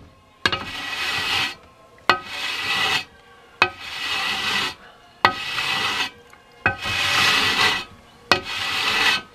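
Carbide cutting block rasping across cured, glass-filled JB Weld epoxy on a motorcycle wheel rim: six long strokes about a second and a half apart, each starting with a click as the block meets the rim. The epoxy is dry and fully cured and comes off as powder.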